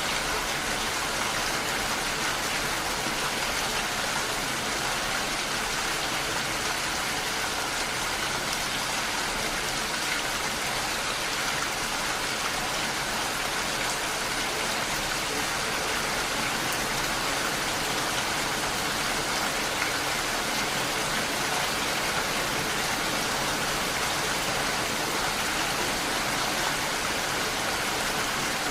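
Steady rain falling against window glass, an even, unbroken hiss with no let-up.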